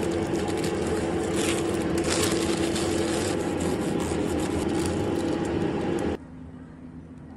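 Paper wrap crinkling and rustling as a sandwich is rolled up by hand, loudest about one and a half and two seconds in, over a steady machine hum. About six seconds in the sound cuts abruptly to a much quieter hum.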